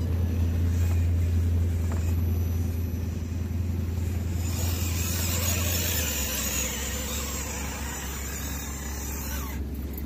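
Steady low engine drone that drops in pitch about six seconds in, joined by a hissing rush from about four and a half seconds until shortly before the end.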